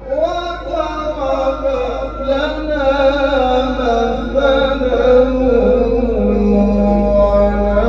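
A man reciting the Quran in the melodic Egyptian style, amplified through a microphone. He holds one long, unbroken phrase whose pitch slowly sinks.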